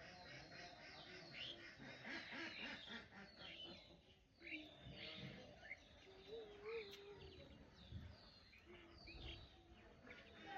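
Faint, busy chirping of many small birds, with a few low pigeon coos among it, the clearest a little past the middle.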